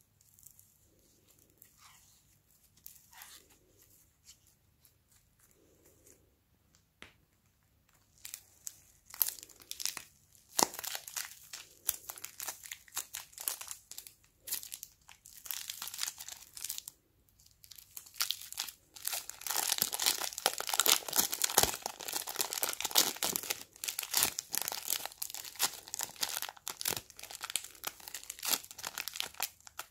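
Soft, faint squishing of foam clay being kneaded by hand, then a thin plastic piping bag crinkling as fingers squeeze pink clay out of it. The crinkling starts about eight seconds in and is densest and loudest over the last ten seconds.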